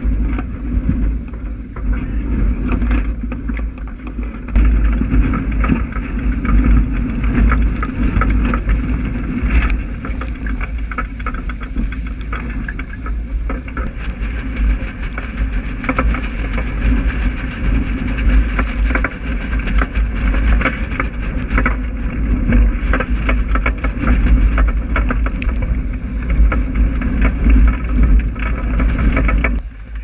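Strong wind buffeting a GoPro's microphone, over water rushing and splashing along a wooden Graduate sailing dinghy's hull as it drives through chop. Spray keeps striking the camera in many short hits.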